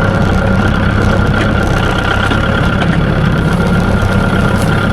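Engine idling steadily: a constant low hum with a steady high tone above it.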